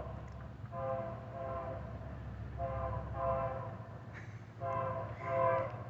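Diesel locomotive's Nathan AirChime K3LA three-chime air horn, on the lead BNSF B40-8W, sounding a series of chord blasts, several seconds in all, as the train nears a grade crossing.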